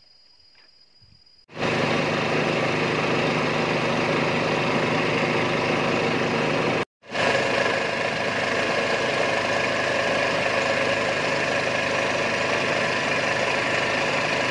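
Small wooden boat's motor running steadily at speed. It comes in abruptly about a second and a half in and breaks off for a moment about halfway through.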